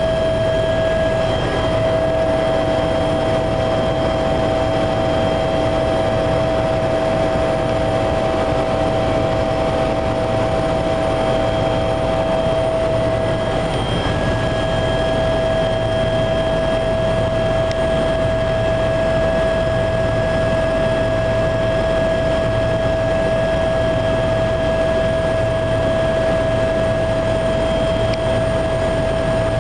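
Helicopter cabin noise in flight: a loud, steady drone with a constant high-pitched whine running through it.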